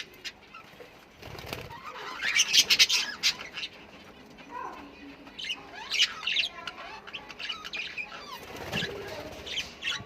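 Australian parrots chirping and squawking in quick bursts of sharp, high calls, loudest about two to three seconds in, with two low fluttering bursts near one and a half and nine seconds in.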